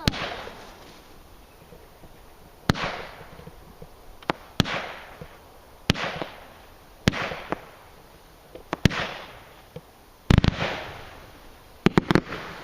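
Low-noise firework cake firing its shots one after another, about one every one and a half to two seconds: each a sharp launch pop followed by a fading hiss and crackle of comets and strobes. Near the end several pops come in quick succession.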